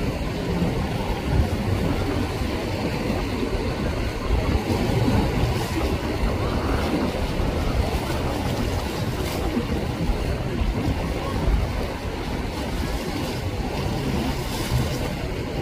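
Wind rumbling on the microphone over the wash of choppy sea, with a center-console boat's outboard motors running as it crosses rough water. The noise is steady throughout.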